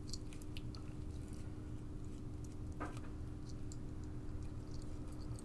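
Small craft scissors snipping at the threads of a cherry-red and gold metallic ribbon: a scatter of quick, crisp snips and ribbon handling, over a faint steady hum.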